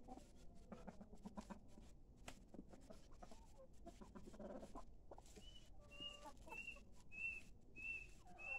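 Chickens feeding on watermelon rinds: soft clucks and scattered sharp pecking clicks. From a little past halfway comes a run of short high peeps, repeating a bit less than twice a second.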